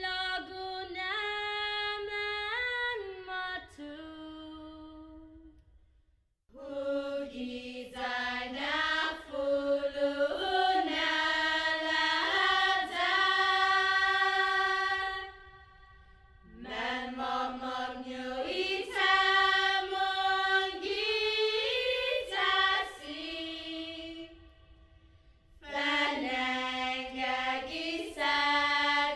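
A choir singing in long phrases, with brief breaks about 6, 16 and 25 seconds in.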